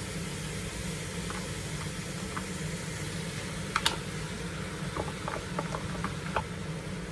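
Sliced pork belly and onions sizzling in a frying pan as kimchi is added. Chopsticks tap and scrape against the bowl, with one sharper click about four seconds in and a few lighter taps after.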